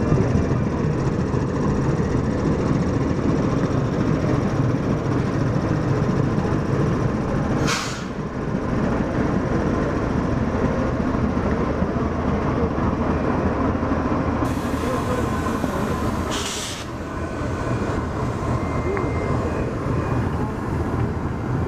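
Pakistan Railways GEU-40 diesel-electric locomotive's diesel engine running steadily at close range with a deep rumble. Two short hissing bursts cut through it, about 8 seconds in and again about 16 seconds in.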